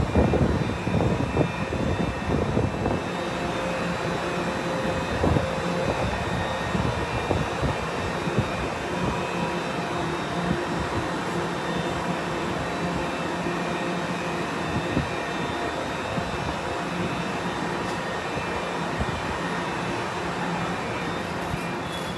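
Cabin of a Honolulu Skyline driverless metro train arriving at its terminal station: a steady hum with several held tones. A low rumble is louder for the first three seconds or so, then settles.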